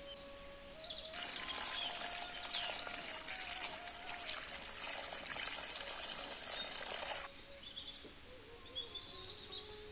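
A steady crackling rustle of fresh leaves being picked and packed by hand into a woven basket, starting about a second in and cutting off abruptly about seven seconds in. Birds chirp before and after it.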